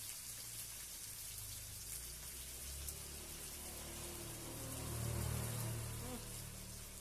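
Salem fish sizzling in hot oil in a wok as it is stir-fried with sweet soy sauce, the spatula stirring through it. A low hum swells about five seconds in.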